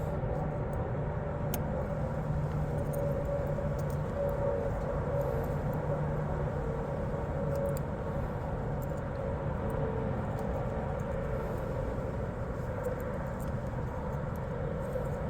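Steady low mechanical rumble, with a few faint small ticks over it.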